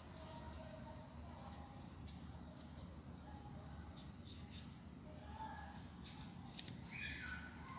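Folded paper units of a 3D origami model rustling and crinkling as they are handled and pressed into place: faint, irregular crisp clicks and scratches. A short falling chirp sounds near the end.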